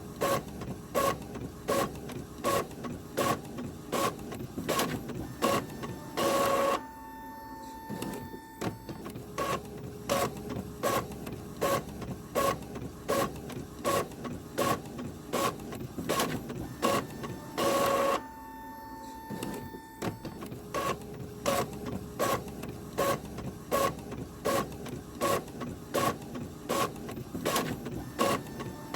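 Office printer printing, a rhythmic stroke about twice a second. About every 11 to 12 seconds, twice here, a louder whirr of about half a second breaks the rhythm, followed by a few seconds of quieter running with a steady hum.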